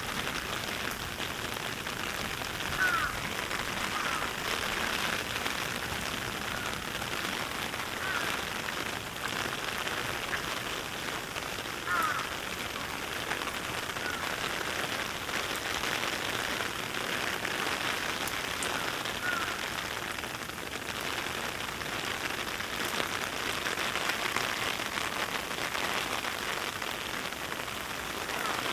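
Steady heavy rain falling. Several short, high squeaks or chirps stand out through it a few times.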